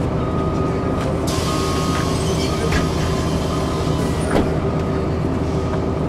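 Cummins ISC diesel engine of a Blue Bird CS bus running steadily, heard from inside the passenger cabin. A hiss starts about a second in and lasts about three seconds, and there is a single sharp knock a little after four seconds in.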